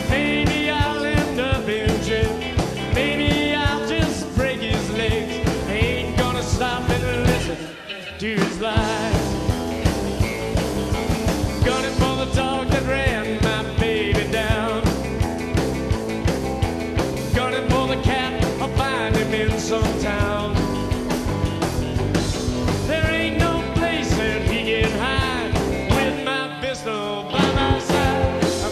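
Rockabilly band playing an instrumental break, with lead electric guitar soloing in bent, wavering notes over bass and drums with a steady beat. The band briefly drops back about eight seconds in and again near the end.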